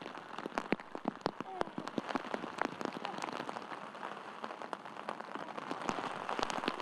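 Light rain pattering: a dense, irregular ticking of drops over a steady hiss.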